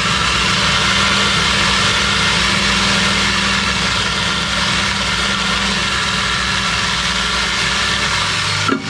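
Angle grinder running steadily as it cuts the end of a metal exhaust pipe, a high whine over a low hum; it shuts off just before the end.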